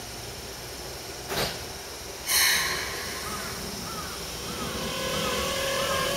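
Blue Keikyu electric train starting to pull away from a platform: a knock, then a loud burst of hissing air about two seconds in, followed by a faint wavering whine and a steady motor tone that grows as it gets moving.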